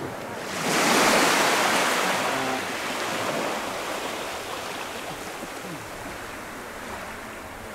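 A small wave breaking and washing up the sand in shallow surf: a hissing surge that builds about half a second in and slowly fades over several seconds.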